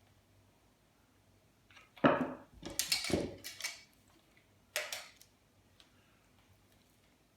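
Metal parts of an appliance being pulled apart and handled: a loud knock and rattle about two seconds in, a second or so of clattering, then another short clatter about five seconds in.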